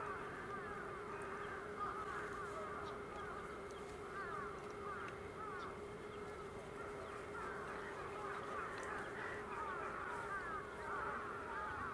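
A dense chorus of many waterbirds calling at once, short rising and falling calls overlapping without a break, over a steady hum.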